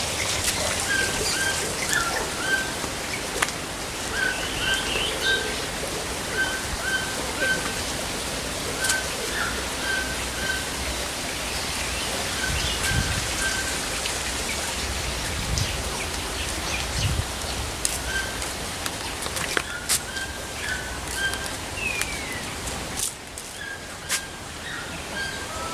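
Short, high chirping calls repeating a couple of times a second over a steady rain-like hiss, with a few sharp clicks; sweeping calls come in near the end.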